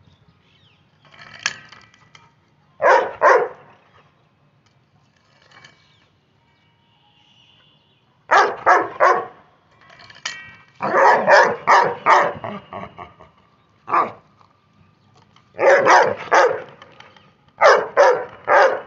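Labrador retriever barking in quick bursts of two to five barks, with a quiet spell of about four seconds after the first pair. It is demand barking at a plastic pipe the dog wants.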